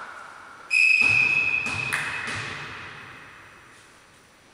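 A referee's whistle blows one steady blast about a second in, which rings on in the sports hall's echo and fades. A short hit follows about a second later, fitting a volleyball being served.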